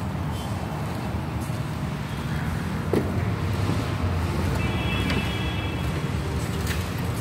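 Steady low rumble of road traffic passing outside, with a single sharp knock about three seconds in and a brief high-pitched tone near the middle.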